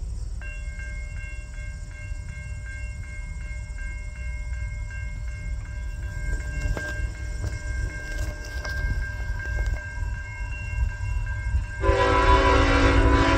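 Approaching diesel freight train: a low rumble under a high ringing that pulses two or three times a second, then holds steady. Near the end the locomotive's horn sounds loudly.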